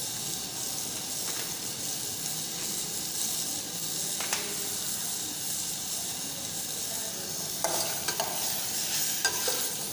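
Chopped tomatoes, onion, garlic and ginger sizzling steadily in oil in a stainless steel saucepan over a gas flame. Near the end a metal ladle stirs them, clicking and scraping against the pan.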